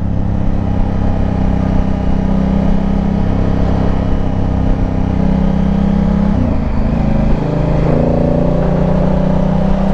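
Honda Africa Twin's parallel-twin engine running steadily under way. About six and a half seconds in, the engine note dips briefly and settles at a different pitch.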